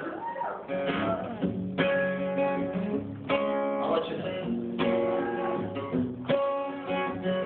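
Acoustic guitar strumming chords played live as a song's intro, with a strong strum about every second and a half, each chord left to ring.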